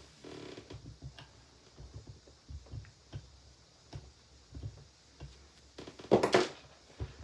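Handling of the plastic parts of a taken-apart handheld vacuum cleaner: scattered light clicks, taps and knocks, with one louder, noisier burst lasting about half a second a little after six seconds in.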